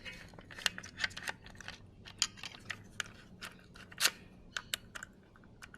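Scattered light clicks of a key turning in a newly fitted Toyota Hilux door lock barrel as the lock is tested, with a sharper click about four seconds in.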